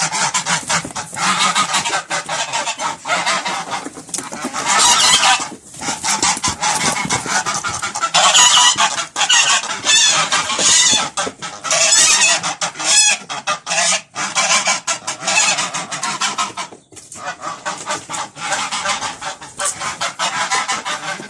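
A flock of geese and ducks honking and calling loudly and continuously in short, overlapping cries, as the birds crowd together in agitation.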